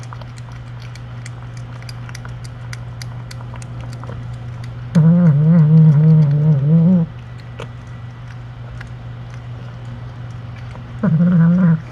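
A voice makes two long, wavering, pitched tones, one about five seconds in lasting about two seconds and a shorter one near the end, over a steady low electrical hum.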